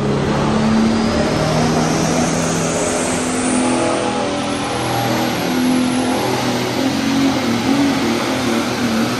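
Light Pro Stock pulling tractor's turbocharged diesel engine running loud and high at the starting line, with a high whine that rises in pitch over the first few seconds.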